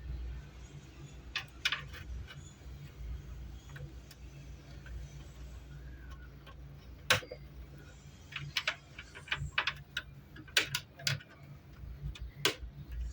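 Irregular light clicks and taps, a few scattered and then a quick cluster of them, over a steady low hum.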